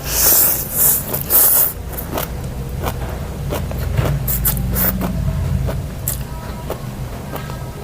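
Loud noodle slurping, three rushing slurps in the first two seconds, followed by scattered short mouth clicks of chewing over a steady low hum.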